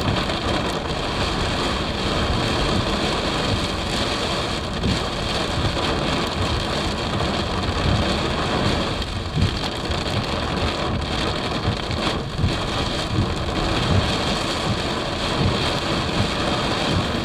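Heavy rain pouring down in a sudden thunderstorm, a steady loud hiss of drops beating on surfaces.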